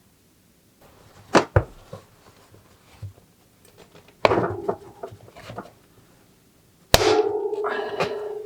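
Metal tools and bicycle parts clinking and knocking during a bike build. There are two sharp clicks about a second and a half in, a clatter near the middle, then a sharp metallic strike near the end that keeps ringing with a steady tone.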